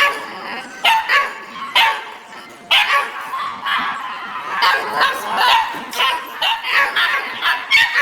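Many dogs barking at once, overlapping barks and yips in irregular bursts.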